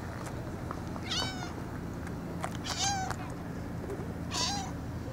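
Tortoiseshell cat meowing three times, short calls about a second and a half apart.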